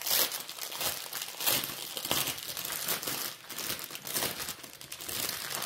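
Small clear plastic bags of diamond-painting drills crinkling and rustling as they are handled and sorted through.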